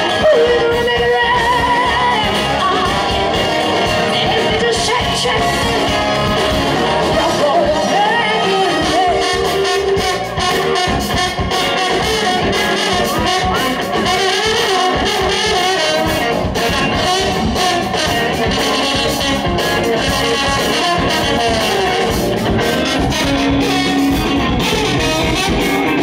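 Live soul-rock band playing: electric guitar, drums and a horn section of saxophone and trumpet, with a woman singing.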